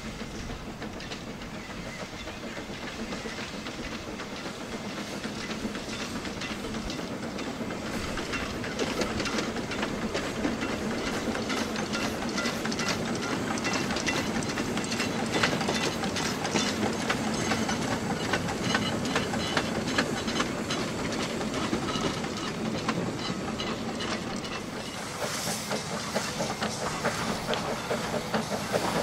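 Narrow-gauge steam locomotive working past with a train: rapid rhythmic exhaust beats and rail clatter over a hiss of steam, growing louder as it approaches over the first half. Near the end the sound shifts to another stretch of the run, with the locomotive again drawing near.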